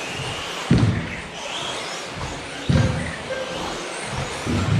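1/10 scale 2WD electric off-road RC buggies racing, motors whining in short rising and falling sweeps over a steady din. A heavy thud comes about every two seconds, three times.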